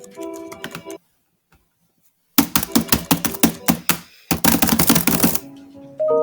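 Fast typing on a computer keyboard: two rapid runs of key clicks with a short pause between them. A brief stretch of music comes before them, followed by a silence.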